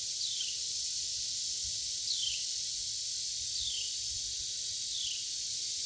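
Steady high-pitched insect chorus, with a short falling chirp from a bird repeating four times, about every second and a half.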